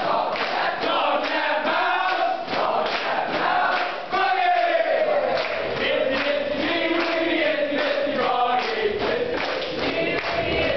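A group of boys and young men singing a chant-like song together, with a regular percussive beat under the voices.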